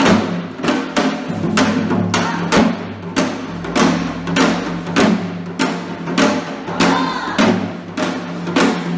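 Music driven by a steady drum beat, about two strokes a second, each stroke ringing on briefly.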